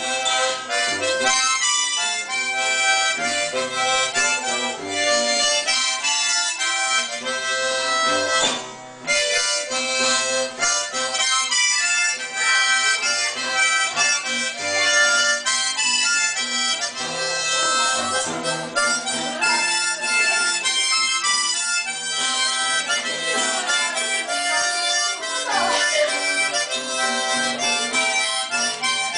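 Harmonica playing a melody of held notes, with a brief pause about nine seconds in.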